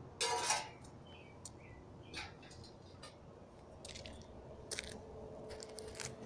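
Sheet-metal dryer part clattering as it is set down, one loud scrape-and-clank just after the start, followed by a few light metallic clinks and taps.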